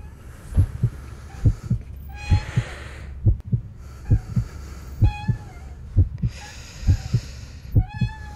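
Heartbeat sound effect: a steady lub-dub of paired low thumps, a little under one beat a second. Every few seconds a higher pitched tone with a hiss joins in.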